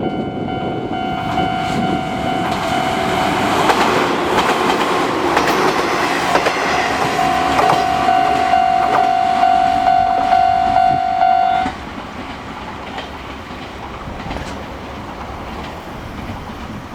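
Level crossing warning bell ringing while an Izuhakone Railway train rolls over the crossing, its wheels clacking over the rail joints. The bell cuts off suddenly about twelve seconds in, leaving a quieter background hiss.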